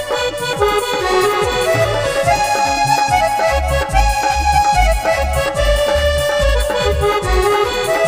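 Instrumental break of a Punjabi devotional song: a sustained, reed-like melody over steady percussion, with deep bass beats coming in about halfway through.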